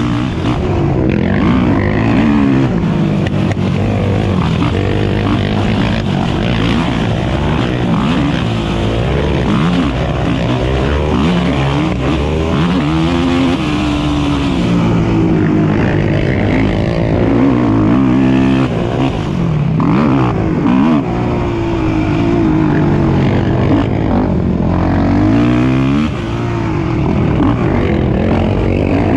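Several racing ATV engines running hard at once, their pitch climbing and dropping over and over as the riders rev, shift and back off the throttle.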